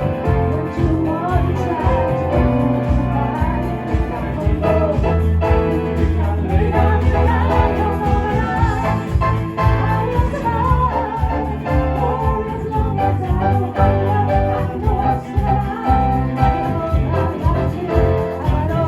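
A live band playing a song with a singer, over steady bass notes and a regular beat.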